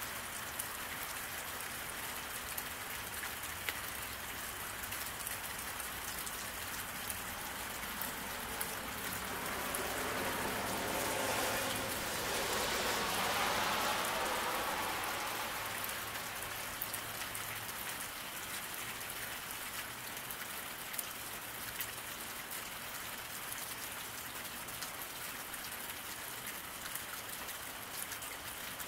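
Steady rain falling on a road, an even hiss with scattered drop ticks. About ten seconds in, a louder hiss swells, peaks and fades over several seconds, the way a car's tyres sound passing on the wet road.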